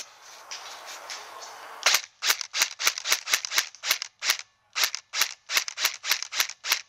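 Airsoft rifle firing a quick string of single shots, about four or five a second with short pauses, starting about two seconds in. Before the shots there is a rustling hiss.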